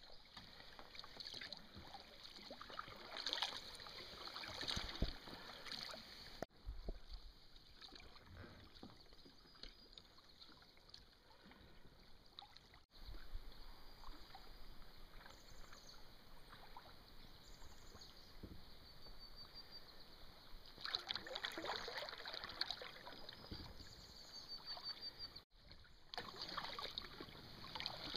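Kayak paddles dipping into calm creek water: quiet, irregular splashes and drips of paddle strokes, louder in a few passages.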